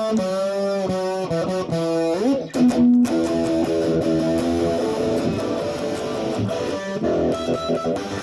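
Rock music instrumental passage led by electric guitar: held notes, one sliding up in pitch about two seconds in, then fuller sustained chords.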